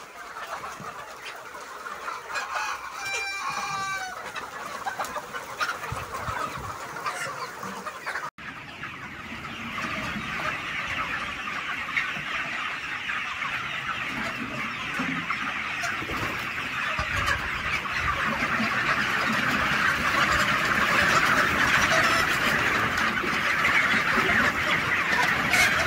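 A large flock of Sonali chickens clucking and calling all together, with a rooster crowing once about three seconds in. After a sudden cut about eight seconds in, the many calls merge into a dense, continuous din that grows louder toward the end.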